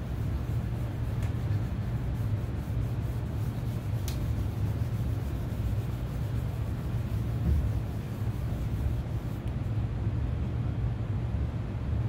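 Cloth rubbing stain into a wooden guitar body, over a steady low background rumble, with a couple of faint ticks.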